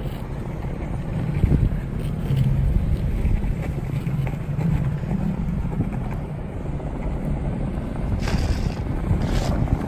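Skateboard wheels rolling over a concrete parking deck: a steady low rumble, with wind on the microphone and two short hisses near the end.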